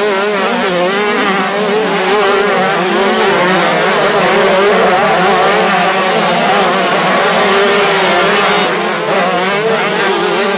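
A pack of 125cc two-stroke motocross bikes racing past together, many engines revving at once, their pitches wavering up and down as they rise and fall over one another.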